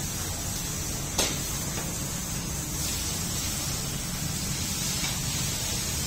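Milk squirting from a cow's teat into a steel tumbler during hand milking, a steady hiss that eases off about halfway, with one sharp knock about a second in.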